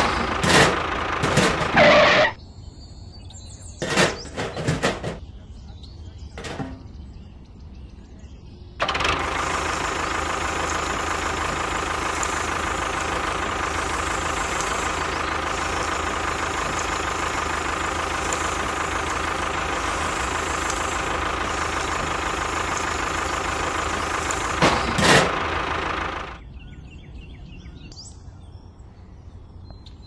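Small electric motor and gearbox of a DIY toy tractor running steadily under load as it drags a plough through sand. It starts about a third of the way in and cuts off suddenly. Before it come a few short knocks.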